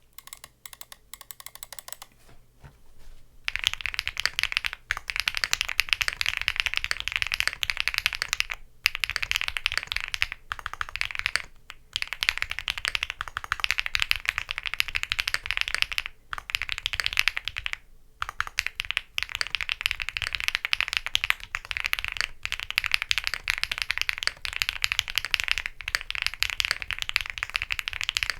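Custom gasket-mount mechanical keyboard with an FR4 plate, lubed Hyacinth V2U linear switches and PBT keycaps being typed on. A few slow, quieter keystrokes give way after about three seconds to fast continuous typing, broken by brief pauses.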